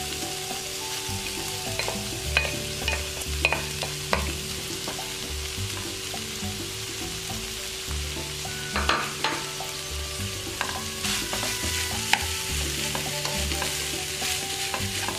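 Rice and shrimp stir-frying in a nonstick wok, sizzling steadily as a spatula turns them, with sharp scrapes and knocks of the spatula against the pan every second or two. A steady low hum runs underneath.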